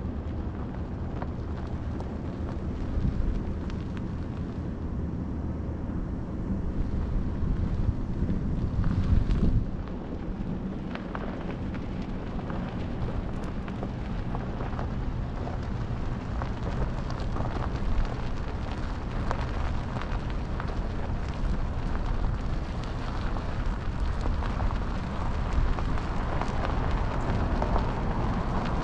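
Steady low rumble of a car driving, road and wind noise, swelling louder about seven to nine seconds in and then easing, with a single knock later on.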